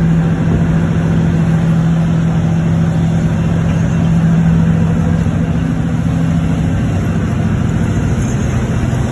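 A fishing trawler's engine running with a steady hum, under a wash of wind and rushing water from rough seas.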